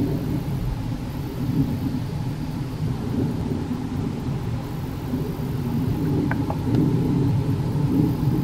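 Wind rumbling on the camera microphone, low and uneven, with a faint single bird chirp about six seconds in.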